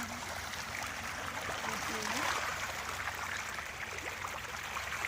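A pond of fish thrashing and splashing at the surface as they feed: a continuous watery churning made up of many small splashes.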